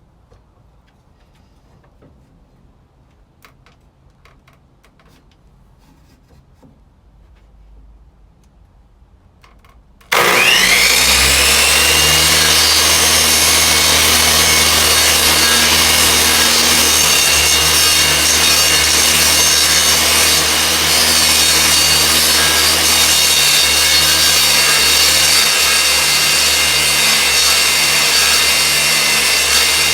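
A few faint handling clicks, then an electric power saw's motor switches on about ten seconds in with a rising whine up to speed and runs loud and steady for the rest.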